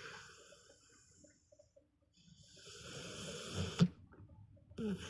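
American Staffordshire terrier snoring in deep sleep: a noisy breath fades out, a short quiet pause follows, then a rising breath ends in a sharp snort a little under four seconds in, and the next breath starts near the end.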